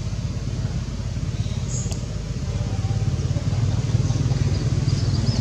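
Low rumble of a motor vehicle engine on the nearby road, growing louder about three and a half seconds in as it comes closer.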